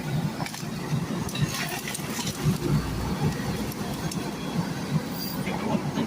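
Heavy machinery running with a low rumble and irregular clanks and rattles.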